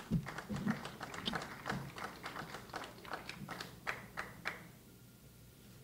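Scattered clapping from a small audience: quick, irregular hand claps that die away about four and a half seconds in.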